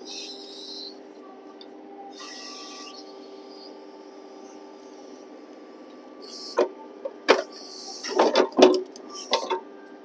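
Kioti DK6010 tractor's diesel engine running steadily while its backhoe works a birch stump. From about six seconds in, a series of sharp cracks and snaps as the roots tear and break while the root ball is levered out of the soil.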